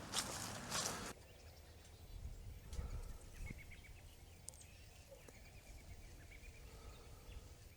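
Footsteps crunching through dry fallen leaves stop about a second in. Then faint, repeated short bird chirps with a low rumble underneath.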